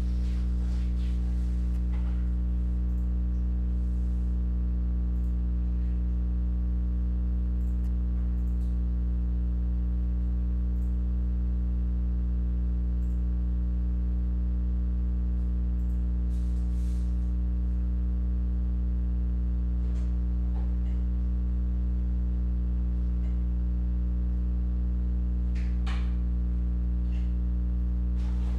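Steady low electrical hum with its overtones, with a few faint soft clicks and rustles from cards and packs being handled.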